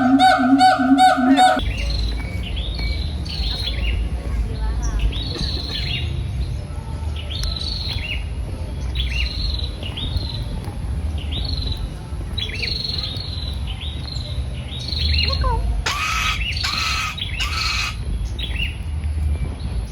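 A bird calling over and over: short falling chirps about once a second over a low rumble, then three loud, harsh squawks near the end. A wavering pitched tone cuts off about a second and a half in.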